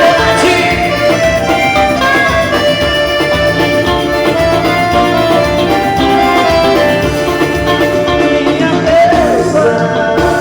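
Live band music led by an accordion, with sustained melody lines over a steady bass and drum groove.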